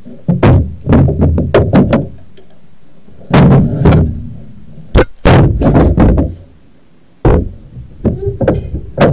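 Knocks, thumps and rubbing right against the microphone as a body-worn camera is handled and bumped, in several clusters with a short quieter gap about seven seconds in.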